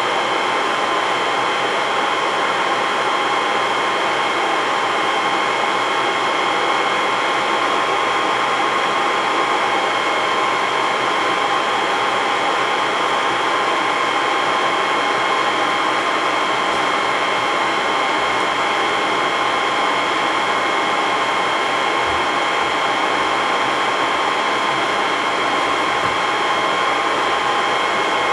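IBM x3250 rack server's cooling fans running steadily while it boots: an even rush of air with a few steady whining tones in it.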